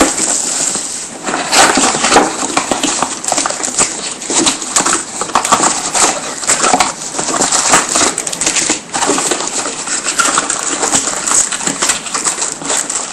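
Crinkling and tearing of trading-card packaging as a box of cards is opened, a continuous crackle of many small rustles and rips.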